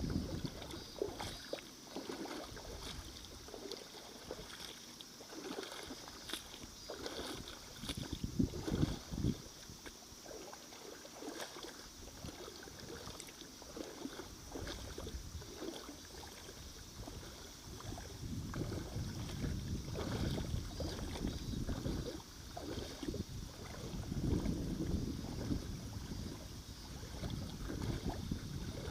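Water sloshing and splashing, with wind rumbling on the microphone in uneven gusts.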